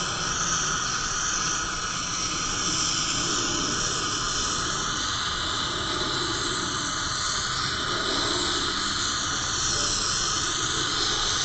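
MAP gas and oxygen torch flame hissing steadily as it is held on a crucible of gold-plated computer pins to melt them.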